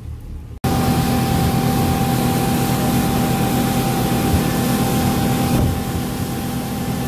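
Twin 250 hp outboard motors driving a speedboat at speed: a steady engine drone with a constant tone, under a heavy rush of wind and water. It starts as a quieter rumble and cuts in much louder after about half a second.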